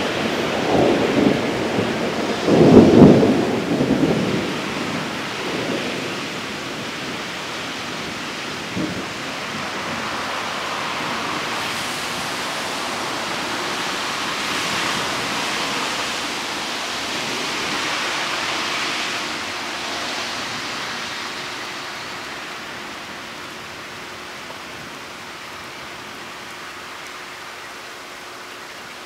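Thunder rumbling twice in the first few seconds, the second peal the loudest, over steady rain. The rain hiss swells twice midway, then slowly eases.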